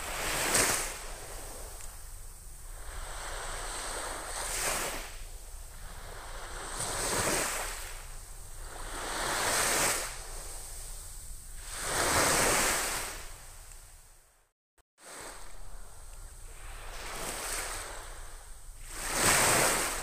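Small, gentle waves breaking and washing up a sandy beach, a rush of surf swelling and fading every two to three seconds. The sound cuts out completely for about half a second a little after two-thirds of the way through.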